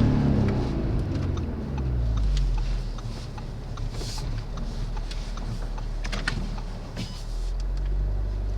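Audi S3's 2.0 TFSI turbocharged four-cylinder engine: its note dies down in the first two seconds to a low steady drone, then swells again near the end. A few sharp clicks come through over it.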